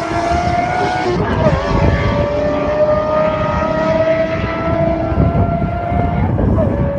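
Lamborghini Murciélago's V12 engine running at steady revs, a sustained tone that dips briefly in pitch about a second in and again near the end.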